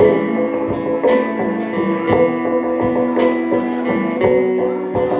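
Live rock band playing an instrumental passage, strummed guitar over bass and drums, with a cymbal or drum hit about once a second.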